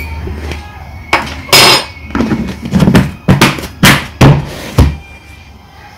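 A large plastic food tub's lid being pressed and snapped shut: a quick run of about eight sharp knocks and thumps.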